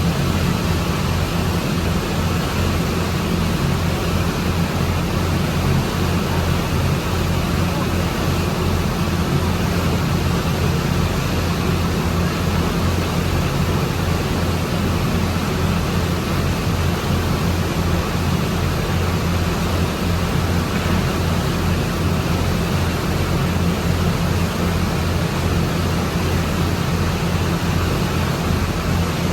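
Steady low engine drone with a constant hum and fast flutter, under an even rushing noise.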